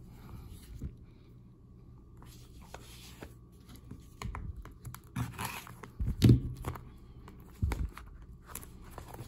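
Shrink-wrapped hockey card hobby box being handled on a table: a few knocks against the tabletop, the loudest about six seconds in, and the cellophane wrap crinkling as fingers start tearing it open.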